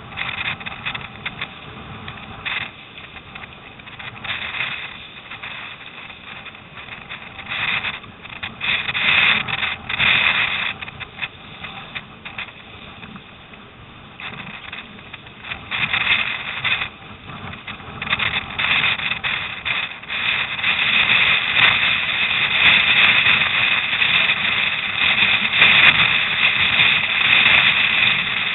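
Wind rushing over the microphone and rough lake water splashing around a surfski's hull and paddle: a steady hiss that surges again and again and grows louder in the last third.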